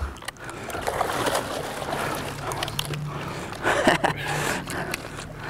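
A hooked tarpon thrashing at the side of a skiff, splashing and sloshing water, with the loudest splash nearly four seconds in. A steady low hum runs underneath.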